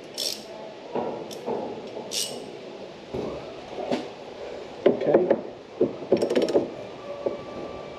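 A socket wrench clicking and knocking against the drain bung of a metal fuel tank as it is fitted and turned to undo it: a few separate sharp knocks, then short runs of rapid clicks.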